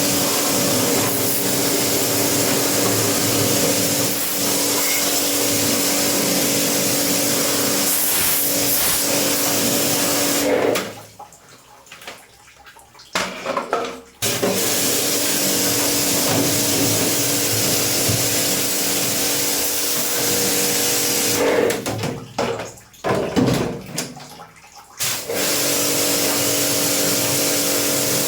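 Electric pressure-washer pump running with a steady motor hum while spraying water. It cuts out twice for a few seconds, about ten seconds in and again a little past twenty seconds, with short spurts in the second break.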